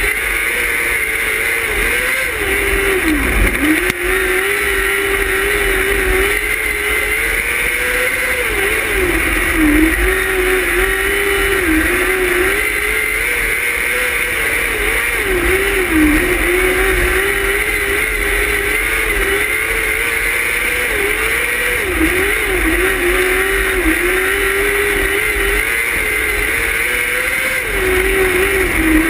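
Onboard engine of a non-wing micro sprint car racing on a dirt oval. The engine note holds high and steady, then dips briefly and climbs back every few seconds as the car lifts off and gets back on the throttle through the turns.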